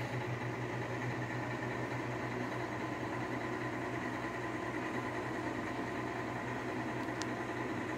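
Steady low mechanical hum of a machine running in a small room, with one short click about seven seconds in.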